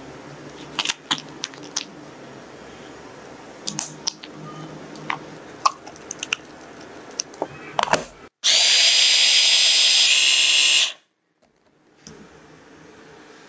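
Scattered scrapes and clicks as thick cooked rice porridge is scooped into a plastic blender beaker. Then an electric blender runs steadily for about two and a half seconds with a whine, puréeing the rice into a smooth paste, and cuts off sharply.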